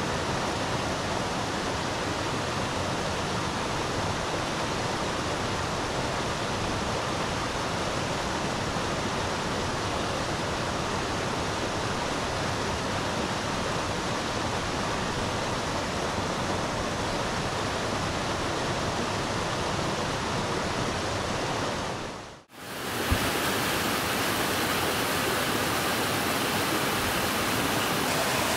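Steady rushing of a mountain river. About three-quarters of the way through it dips out briefly and comes back brighter.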